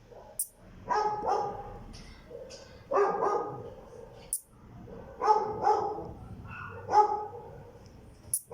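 A dog barking, mostly in pairs of barks about every two seconds. Three very short high-pitched buzzes come about four seconds apart, from the green leaf katydid calling at night.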